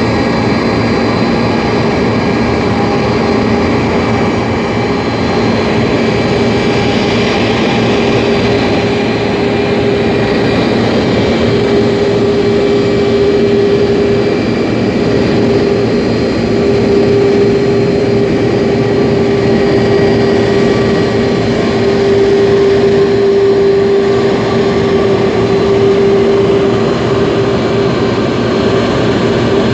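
Airbus A310-304's General Electric CF6-80C2 turbofan engines running steadily with a dense rumble and a droning tone that swells slightly at times.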